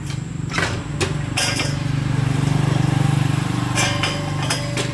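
A small engine running steadily, swelling a little louder in the middle, with a few sharp knocks over it.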